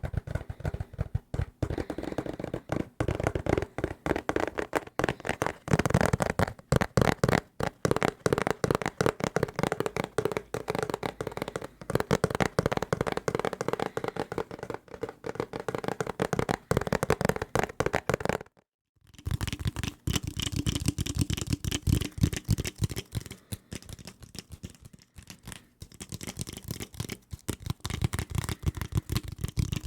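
Fast, aggressive tapping on assorted desk objects, many taps a second, close to the microphone. There is a short break about two-thirds of the way through.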